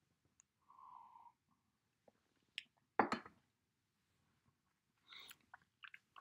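Mostly quiet room tone of a home voice recording, broken by one sharp click about three seconds in. Near the end comes a soft intake of breath and small mouth clicks.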